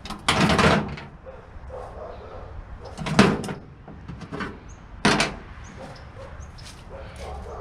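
Three loud knocks and clatters from scrap metal being handled on a stripped closet AC unit, each about half a second long and spread over about five seconds.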